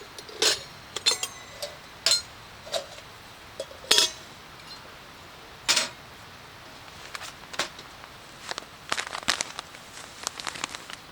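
Camp coffee gear being handled: scattered metallic clinks and knocks, irregularly spaced, a few ringing briefly.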